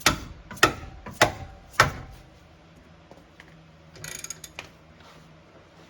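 Hand tools at work on a car: four sharp metallic knocks evenly spaced about 0.6 s apart, then a short run of rapid clicking about four seconds in.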